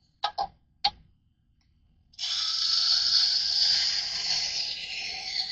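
Two short knocks, then about two seconds in a steel knife blade starts grinding against a powered sharpening wheel, a steady, loud, high, gritty hiss.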